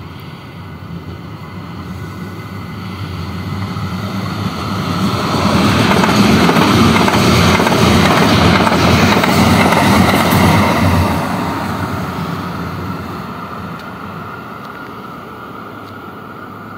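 Electric light-rail train passing close along the platform: its running noise builds, is loudest for about five seconds in the middle with wheels clacking on the rails, then fades as it pulls away.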